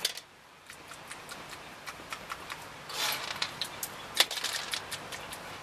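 Light, irregular clicks and taps of a plastic toy pot and lid being handled, with a sharper click about four seconds in.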